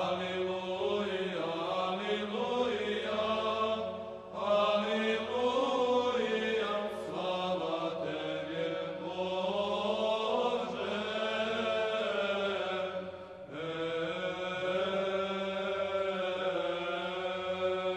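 Background music: slow, sung Orthodox church chant over a held low drone note, with two short pauses between phrases.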